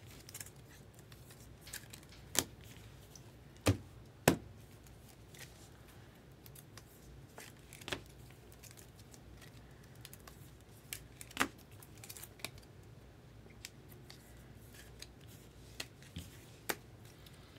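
Scattered sharp clicks and light ticks of trading cards and clear plastic card holders being handled, over a low steady hum.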